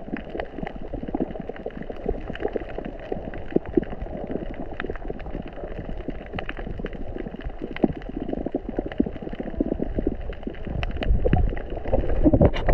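Underwater reef sound: a dense crackle of sharp clicks, typical of snapping shrimp, over a low rumble of moving water, growing louder near the end.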